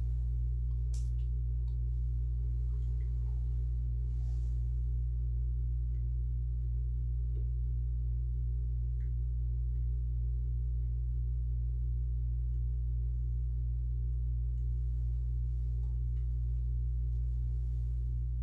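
A steady low hum at a constant level, with a few faint clicks and taps over it.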